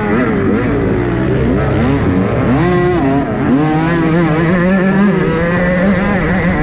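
Motocross dirt bike engines revving hard while racing, heard from a helmet-mounted camera: the pitch climbs and drops repeatedly through gear changes, then holds steadier from about four seconds in. A second bike running alongside adds its own engine.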